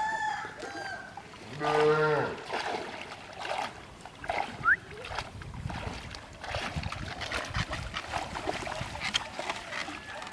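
Shallow water splashing and sloshing in uneven bursts as a bamboo-framed push net is shoved and lifted through weedy pond water. A short call sounds about two seconds in, and a brief rising chirp follows a few seconds later.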